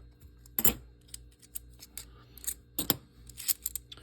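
Half-dollar coins clinking against one another as they are handled and sorted by hand: scattered light clicks, with louder clinks about two-thirds of a second in and near three seconds.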